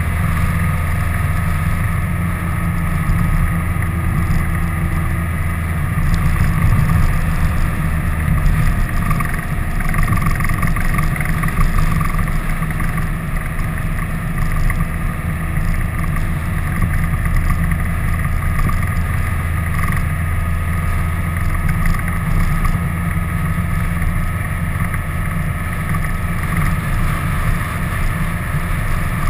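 Vehicle engine running steadily at cruising speed, with wind rushing over the mounted camera's microphone. The sound stays much the same throughout, swelling slightly a few seconds in.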